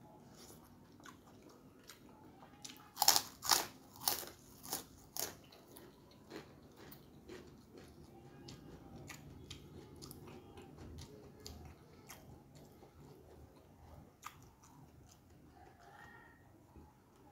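A person biting and crunching a fried cracker (kerupuk): a run of about five loud crunches about three seconds in, then quieter chewing with small clicks.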